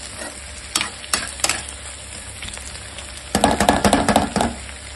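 Chopped onions, tomatoes and chillies sizzling in hot oil in a non-stick kadai as a spatula stirs them. There are a few sharp spatula knocks on the pan about a second in, then a louder burst of scraping and crackling from about three and a half to four and a half seconds.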